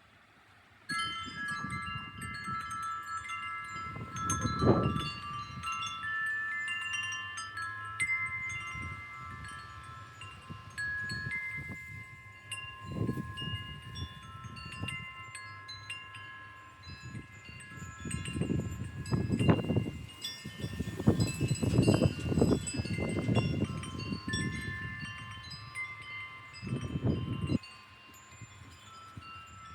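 Wind chimes ringing in gusty wind, many overlapping tones starting about a second in. Gusts of wind rumble on the microphone now and then, strongest about two-thirds of the way through.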